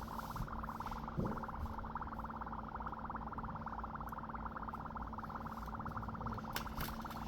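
Dry ice bubbling steadily in soapy water, a rapid, even bubbling as its gas swells a soap bubble. A couple of sharp clicks near the end.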